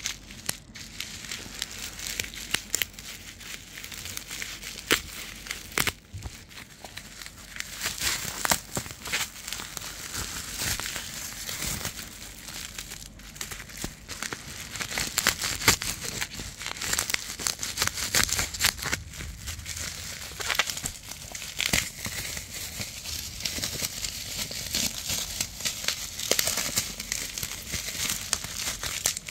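Plastic parcel packaging (a black plastic mailer, packing tape and bubble wrap) crinkling and rustling as it is handled and pulled open by hand. Irregular crackles and sharp snaps throughout.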